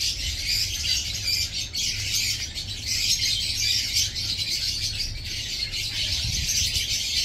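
A chorus of many small birds chirping at once, dense and continuous, over a steady low rumble.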